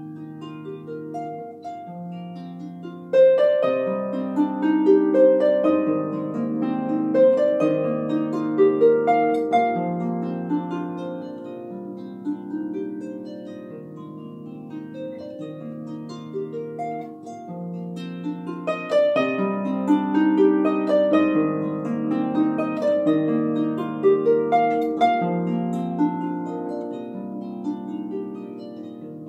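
Solo harp played by hand: plucked notes over a repeating bass line. It grows louder about three seconds in, softens in the middle, and swells again about two-thirds of the way through.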